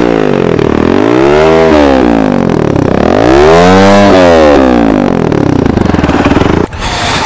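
Speeder NSX 165R motorcycle engine revved twice through its exhaust, the pitch climbing and falling back each time before settling back down.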